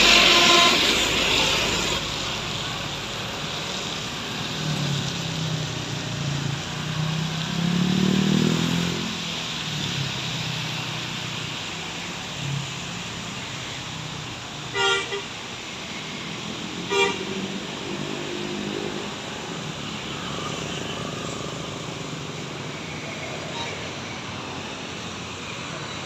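Mountain-road traffic: a horn tune trails off at the very start. A heavy bus engine climbs a few seconds in, rising in pitch and then dropping. About halfway through come short horn toots, a quick double and then one more two seconds later, over steady road noise from passing motorcycles.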